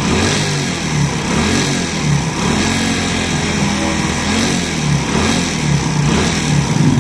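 Honda Pridor motorcycle's single-cylinder engine running steadily with a noise from inside the engine: piston noise, from a damaged piston that has worked loose in a worn cylinder.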